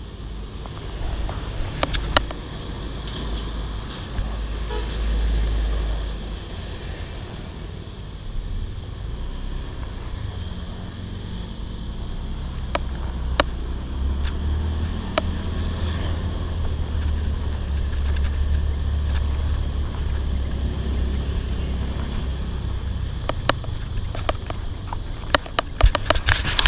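Road traffic passing on a street over a steady low rumble. The rumble swells with louder passes about five seconds in and again through the middle. Scattered sharp clicks come through, with a cluster near the end.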